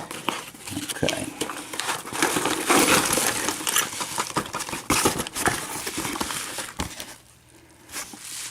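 Rummaging through a shipping box of padlocks: packing material rustling and crinkling, with many small metallic clinks and knocks as the locks are handled. It goes quiet briefly near the end.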